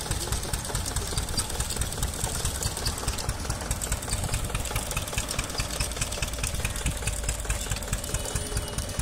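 Engine driving a sugarcane crusher, running steadily with a regular knocking beat of several pulses a second.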